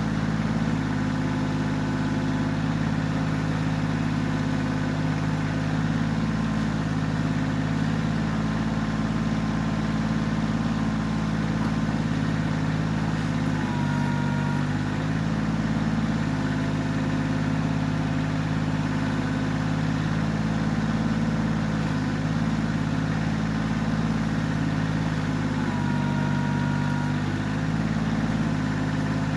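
Kioti CK20S compact tractor's three-cylinder diesel engine running steadily during backhoe work, its note sagging briefly twice, about halfway through and near the end, as it takes load.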